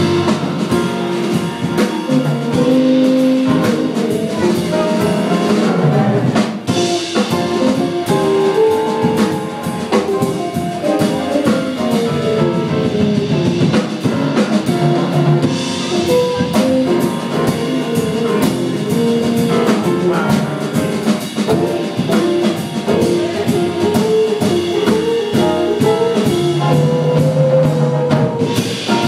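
Jazz band playing: a drum kit keeping a busy, steady beat under a moving melody line.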